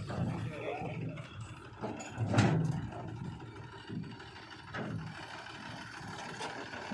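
Machinery clanking and rattling unevenly, with a loud knock about two and a half seconds in and smaller knocks before and after.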